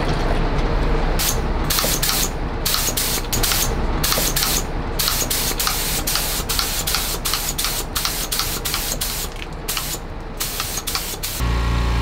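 Gravity-feed air spray gun spraying thinned floor wax as a clear coat: a loud hiss of air and spray that starts and stops many times as the trigger is pulled and released, over a steady low rumble. Just before the end the hissing stops and a steady hum takes over.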